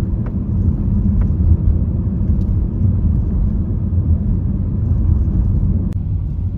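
Steady low rumble of a moving car, with a few faint clicks.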